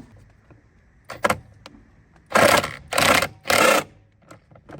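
Ratchet tightening the bolt of a car battery's hold-down bracket: a couple of clicks, then three short bursts of rapid ratcheting.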